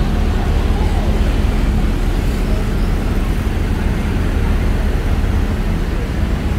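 Busy city road traffic: a steady rumble of passing cars and engines, with a low engine hum from a nearby vehicle that fades about two seconds in.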